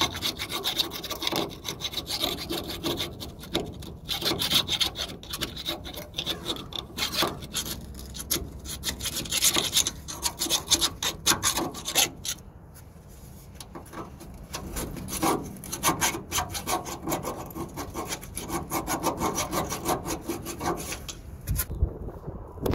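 Rapid back-and-forth scraping of metal by hand, cleaning out the bolt hole on a truck's suspension, with a short pause about halfway and a few knocks near the end.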